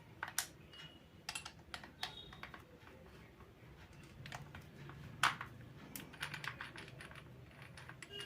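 Scattered light clicks and rattles of a Bosch GSB 500RE drill's keyed chuck being loosened by hand with its chuck key to free the drill bit. The single loudest click comes about five seconds in.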